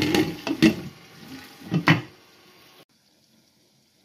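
Glass pot lid clattering against the rim of a metal cooking pot, several sharp knocks in the first two seconds, over the bubbling of the simmering onion-and-tomato mixture. Everything cuts off suddenly nearly three seconds in.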